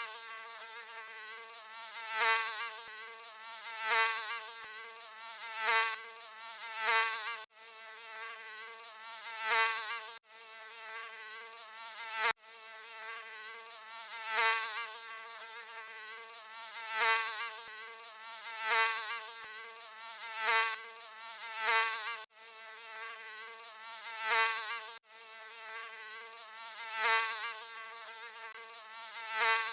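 Mosquito buzzing: a thin, high-pitched whine that wavers slightly in pitch and swells louder roughly every two seconds, as if flying close past the ear. It drops out for an instant a handful of times.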